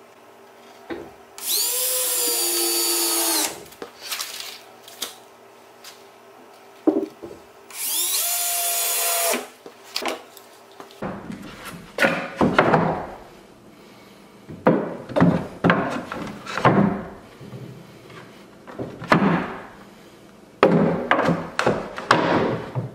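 Cordless drill driving screws into wood, two runs of about two seconds each with a steady motor whine. Then a string of wooden knocks and clatters as boards and wood pieces are handled.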